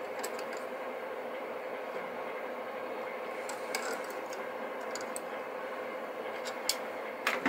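Pliers clicking and scraping against a brass pipe connector as it is worked loose: a few small clicks spread out, then a louder clatter of clicks near the end, over a steady background hum.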